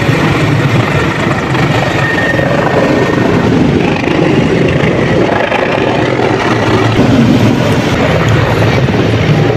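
Helicopter flying past during an air show display, its rotor and engine noise loud and steady.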